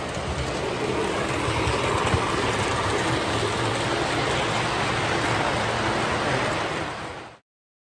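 Model trains running on a layout's track: a steady rumble and whir of wheels and motors that cuts off abruptly near the end.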